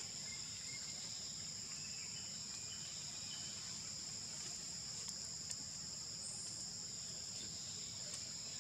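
A steady, high-pitched chorus of forest insects droning at two even pitches without a break, over a low background hum, with a few faint short chirps.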